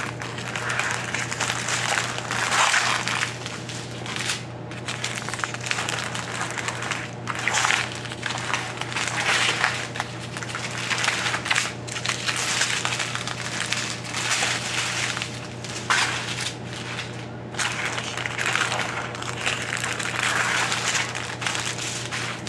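Strips of clear plastic diamond-painting drill bags crinkling in repeated bursts as they are unfolded and laid out by hand.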